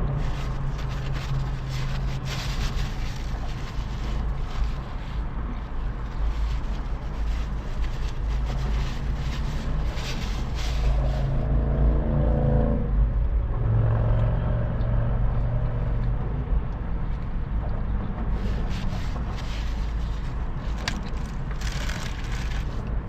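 Steady low engine rumble of a car with many short crinkling and rustling handling sounds, as of a paper burger wrapper being handled. In the middle a louder engine sound swells for a few seconds and then fades.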